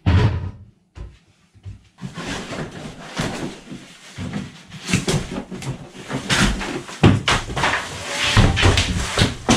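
Sheets of EPS foam insulation board being pulled down from an overhead storage rack: irregular scraping and rubbing of foam against the stored boards and wood, with sharp knocks among it.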